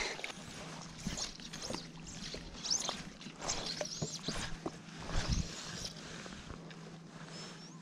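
Fly line swishing and rustling as it is cast and stripped in from a float tube, with light water sounds against the tube and scattered soft clicks over a faint steady low hum.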